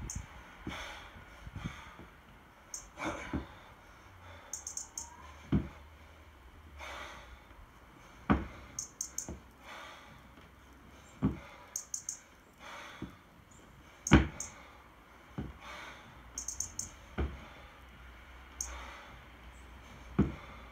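One-arm 24 kg kettlebell jerks: a sharp thud about every three seconds as each rep lands, with hard breathing between the reps.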